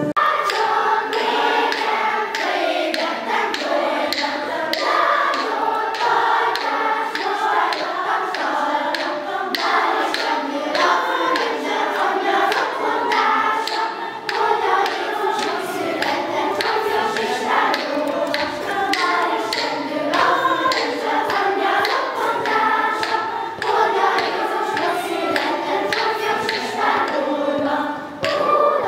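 Children's choir singing, with many short sharp clicks through the song.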